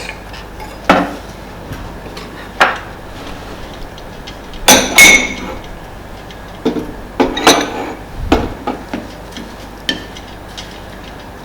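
A spoon knocking and clinking against a bowl while mixing, about half a dozen separate sharp knocks, the loudest about five seconds in with a short ringing.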